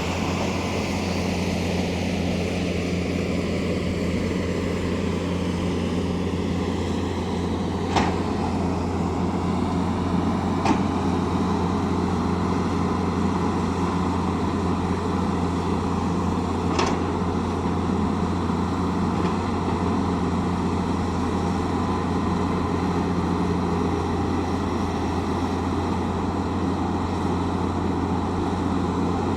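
Tata Hitachi excavator's diesel engine running at a steady hum, with a falling whine over the first few seconds and three sharp metallic clanks.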